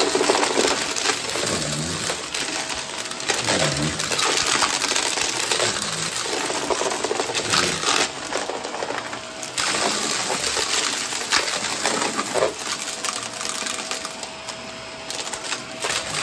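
Continuous busy clicking and clinking of small hard objects being handled.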